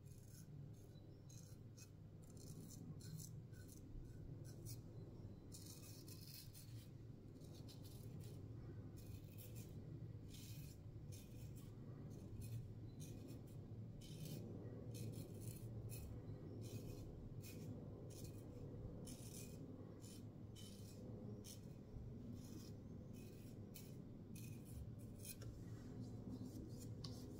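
Faint, scratchy strokes of a RazoRock Hawk V2 single-edge safety razor with a Feather ProGuard blade cutting lathered stubble, repeated in short irregular bursts, on a first pass with the grain.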